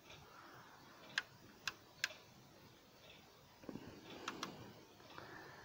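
A handful of faint, sharp clicks at irregular intervals, with light handling rustle, as a model stretch limousine is turned over in the hands.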